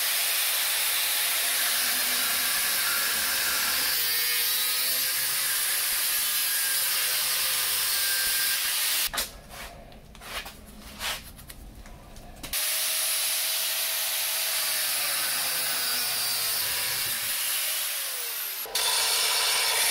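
A 5-inch Bosch angle grinder with a 1 mm cutting disc cutting through steel water pipe: a loud, steady, harsh hiss as the disc bites the metal. It breaks off a little after halfway for a few seconds of knocks as the pipe is handled, then cuts again.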